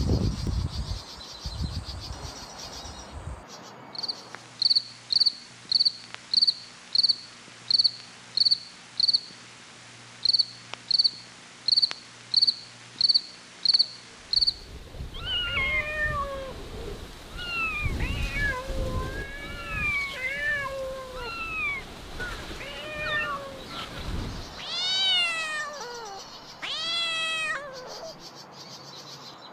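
A cricket chirping at an even pace, a little under two chirps a second, followed by kittens mewing in many short calls. The mewing ends with two longer, louder meows that fall in pitch.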